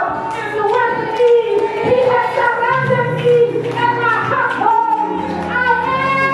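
A woman singing solo into a handheld microphone, holding long notes that bend and waver in pitch.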